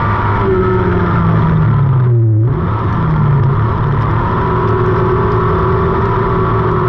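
Race car engine running hard at high revs over a hiss of dirt and gravel thrown up by the tyres. About two seconds in the hiss drops out for a moment and the engine note dips, then both pick up again.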